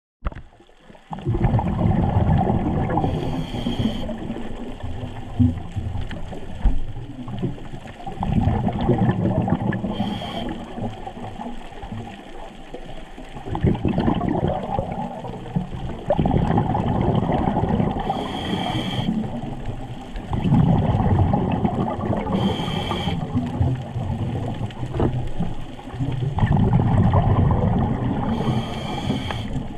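Scuba diver breathing through a regulator underwater: a short hiss on each inhale, five times, with longer bubbling rumbles of exhaled air between them.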